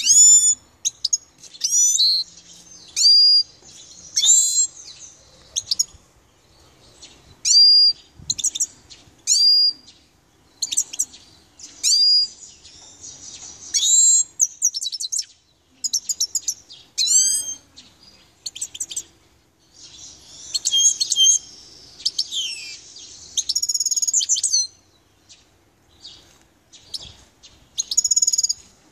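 Grey-headed goldfinch singing: short, high notes that slide quickly up and down, given in separate bursts every second or two, with a longer run of twittering about two-thirds of the way through.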